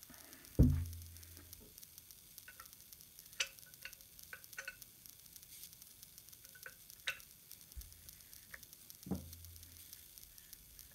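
A steel air cylinder and a metal spanner being handled on a cloth-covered bench: a dull thump about half a second in, then scattered light metallic clicks and taps as the spanner works at the cylinder's valve end, and a second, softer thump near the end.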